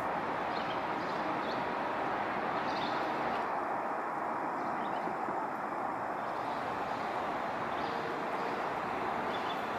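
Steady outdoor background noise, an even hiss and rumble with no clear events, with faint short high chirps now and then.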